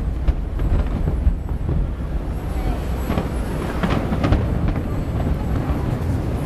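Aerial fireworks shells bursting, a few sharp bangs over a steady low din of more distant bursts, with a crowd talking.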